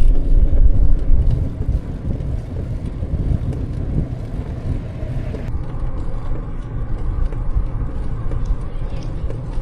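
Loud low rumble of wind and road noise on the microphone while riding a bicycle along a mountain road. The noise shifts abruptly about halfway through.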